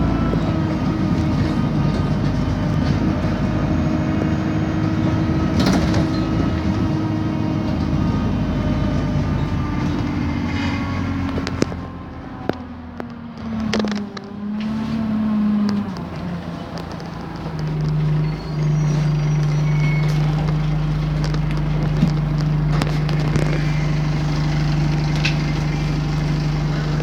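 London bus engine and road noise heard from inside the passenger cabin as the bus travels. The sound dips for a few seconds about halfway, with a brief falling-then-rising engine note, then settles into a steady low hum.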